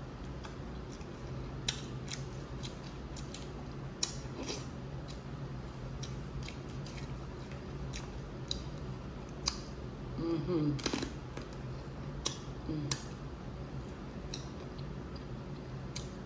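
Scattered sharp clicks and cracks of Dungeness crab shell being broken and picked apart during eating, over the steady low hum of an air conditioner. A short murmur-like sound comes about ten seconds in.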